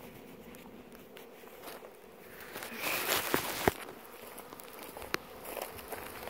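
Honeybees buzzing as a faint steady hum, with rustling and a couple of sharp knocks about three seconds in as a gloved hand picks up a glass mason jar of sugar water.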